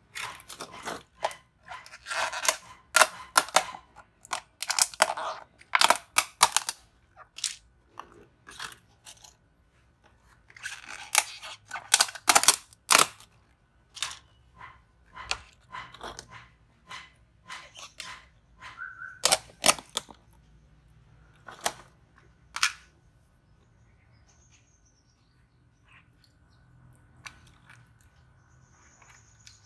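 Clatter of thin plastic tubs and metal tweezers being handled: dense, irregular clicks, taps and crackles, thinning out to a few single taps and stopping about three-quarters of the way in.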